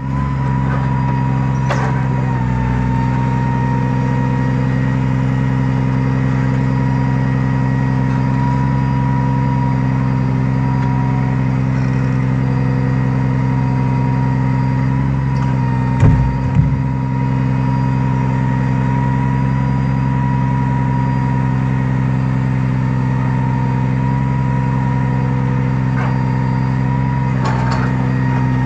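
Log truck's engine running steadily to drive its knuckle-boom log loader, with a thin steady whine over the engine. Two heavy knocks about halfway through as the loader handles a log.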